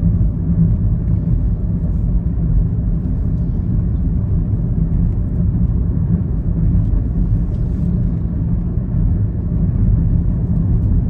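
Steady low rumble of a car driving on a paved road, heard from inside the cabin: engine and tyre noise at an even speed.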